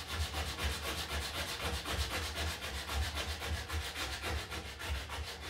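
Sandpaper sanding cured panel adhesive over rust repairs in the windscreen frame, a scratching rub in a quick, even rhythm of strokes.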